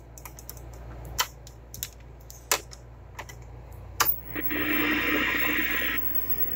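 Small clicks of pliers working the pull-on power knob of a 1978 Hitachi 9-inch solid-state color TV, then a sharp switch click about four seconds in. The set then comes on at reduced voltage with a loud rush of static hiss and buzz. After about a second and a half this drops to a lower steady hum.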